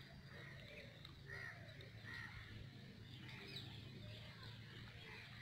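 Near-quiet pond-side ambience with a bird calling faintly, two short calls about a second and a half and two seconds in.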